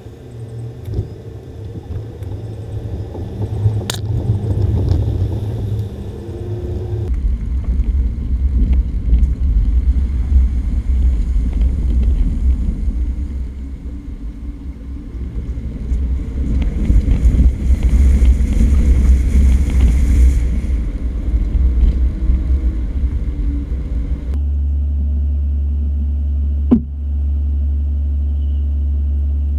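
Four-wheel-drive vehicle engine and driving noise picked up by a camera mounted on the bonnet, an uneven low rumble as it crawls over a rocky track, cut into separate clips twice. Near the end it settles to a steady low engine hum with a single sharp click.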